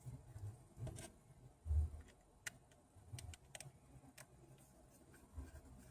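Scattered faint clicks and a few soft knocks of a phone and small repair tools being handled on a work surface.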